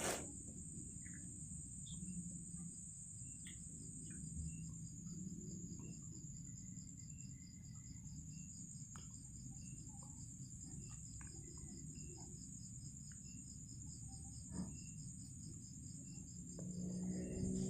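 Insects trilling steadily: a continuous high trill with a rapidly pulsing trill just below it. A few faint light clicks are heard now and then.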